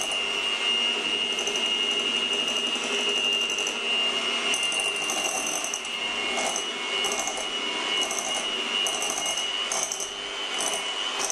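Electric hand mixer running steadily with a high motor whine, its beaters whisking a thick egg batter in a glass bowl as four egg yolks are beaten in. From about halfway through, short bursts of higher noise come and go over the steady run.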